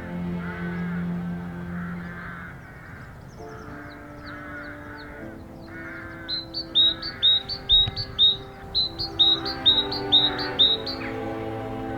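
A bird calling in a rapid run of about fourteen short, sharp, high notes, starting about halfway through and stopping near the end, over background music with held notes.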